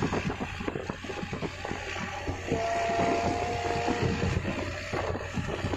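Wind buffeting the microphone on the deck of a ship under tow, over a steady low engine rumble. About two and a half seconds in, a steady two-pitch tone sounds for nearly two seconds.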